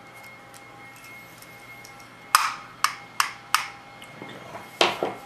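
Sharp clicks and taps of small metal carburettor parts and hand tools being handled and set down, four in quick succession about two seconds in and one more near the end.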